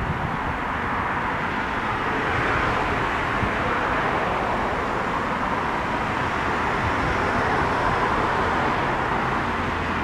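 Steady rushing noise of distant vehicles, with a low rumble underneath and no horn.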